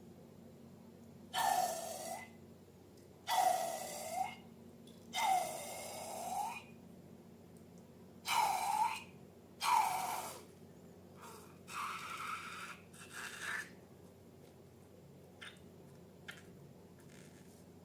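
A series of seven short airy hissing bursts, each about a second long and a second or two apart, the last two fainter, followed by two faint clicks near the end.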